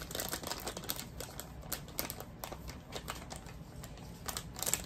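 Irregular light clicks and taps of small hard items being handled on a tabletop, with a quick cluster of them near the end.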